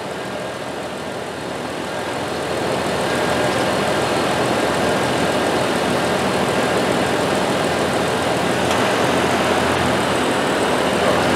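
Car engine running with the A/C system on, a steady engine hum under the hood that grows louder about two seconds in.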